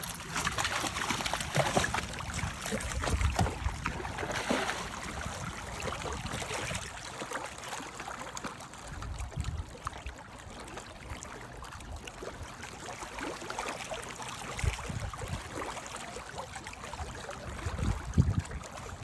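Water splashing and gurgling as a dog swims in a lake, paddling after a thrown toy.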